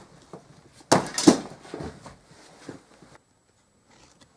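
Handling noise: a loud thump and knock about a second in, followed by fainter knocks and rustling. The sound drops almost to nothing about three seconds in.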